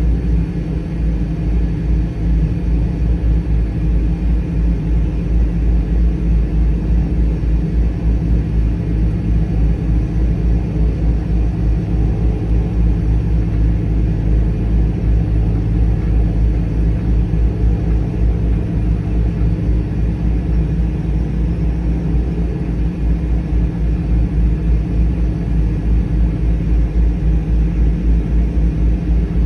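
Cessna 208 Caravan's Pratt & Whitney PT6A turboprop engine running steadily, its sound holding even with no rise or fall in power.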